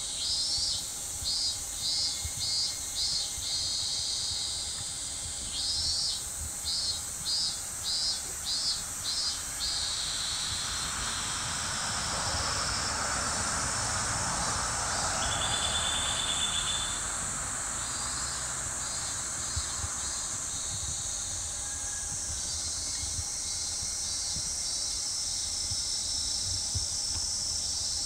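A steady, high-pitched chorus of insects, with two runs of rhythmic chirps at about two a second near the start and fainter runs later. A broad rushing sound swells and fades in the middle.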